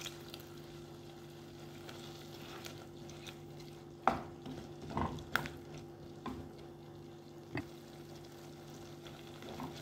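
A wooden spatula stirring a thin, watery curry in a pot, with a few sharp knocks of the spatula against the pot about four, five and seven and a half seconds in, over a steady low hum and a faint sizzle.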